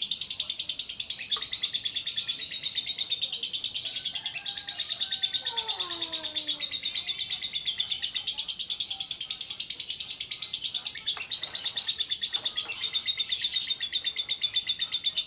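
Caged lovebirds chattering in a rapid, unbroken stream of high chirps.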